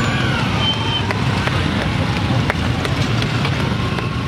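Motorcycles riding past one after another, their engines running steadily, with voices in the background.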